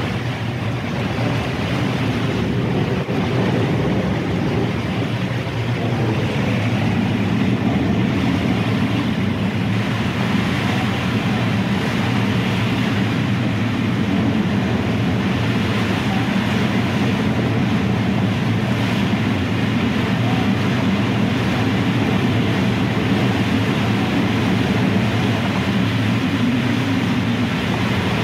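Wind and rushing water on a Leopard 45 sailing catamaran beating upwind in about 25 knots of wind. A steady, loud rush that grows a deeper rumble about six seconds in.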